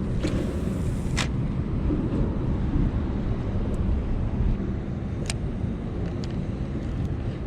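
Steady low rumble of road traffic on the highway bridge overhead, with a couple of faint sharp clicks.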